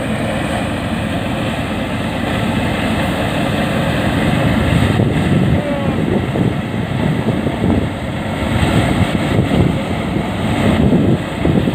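Upkar paddy thresher running steadily under load as rice straw is fed through it: a continuous dense mechanical noise from its threshing drum and blower.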